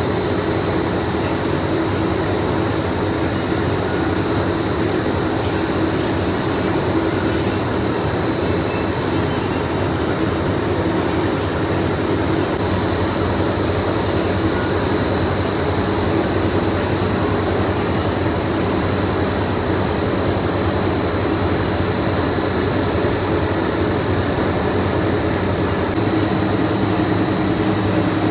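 Factory machinery running steadily: a loud, even din with a constant high-pitched whine over it.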